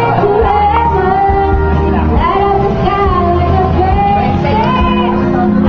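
A woman singing loudly into a microphone over a videoke (karaoke) backing track. She holds long notes and slides up between them.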